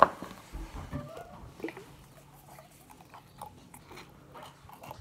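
A spoon stirring sticky slime in a bowl: one sharp tap at the start, then faint, scattered squishy clicks as the slime is worked.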